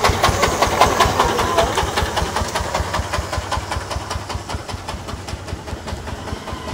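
An engine running with a fast, even beat of low thuds, fading steadily as it goes.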